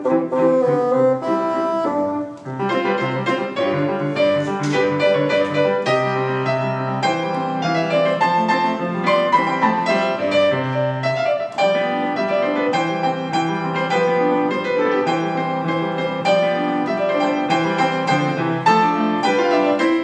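Bassoon and grand piano playing a fast classical concerto movement, the piano standing in for the orchestra.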